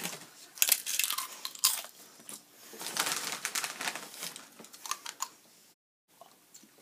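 A hand rummaging in a foil chip bag: the bag crinkles and rustles in sharp crackles, with chips crunching. The sound drops out briefly near the end.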